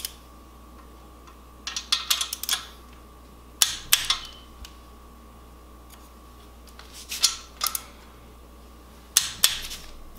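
Ratchet wrench clicking in four short bursts of quick clicks as the bedplate bolts of an engine block are run down and tightened.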